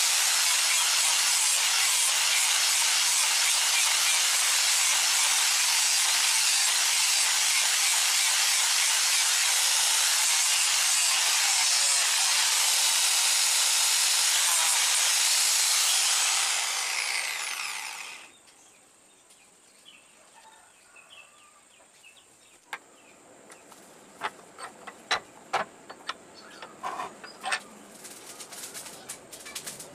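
Handheld angle grinder with a sanding disc running against a sonokeling (rosewood) knife handle, a steady high hiss; about sixteen seconds in it is switched off and winds down over a couple of seconds. After a pause come scattered sharp clicks and knocks as the knife is clamped in a metal bench vise.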